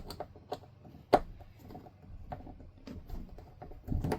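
Scattered light clicks and knocks of a hand screwdriver and the metal fittings being handled as the driver is set against the screws of an RV toilet's water valve. One sharper knock comes about a second in.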